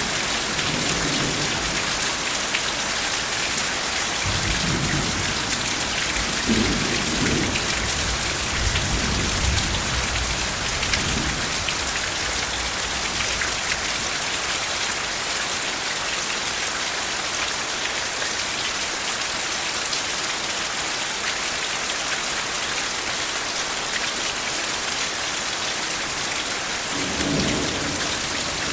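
Steady heavy rain with soft rolling thunder: low rumbles come and go through the first dozen seconds and one more sounds near the end.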